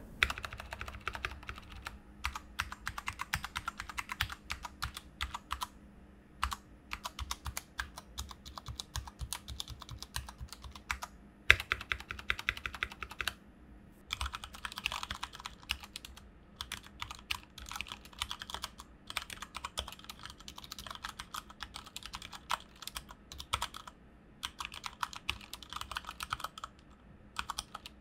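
Typing on a Cooler Master MK730 tenkeyless mechanical keyboard with Cherry MX Brown tactile switches: fast runs of key clicks broken by short pauses, with one louder keystroke about halfway through.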